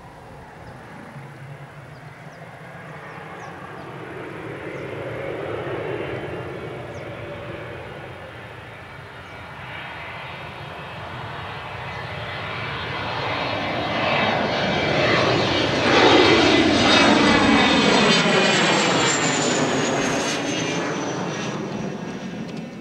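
Cessna Citation twin-engine business jet taking off and climbing past overhead. The jet noise builds to its loudest about two-thirds of the way through, and a high turbine whine falls in pitch as the jet passes.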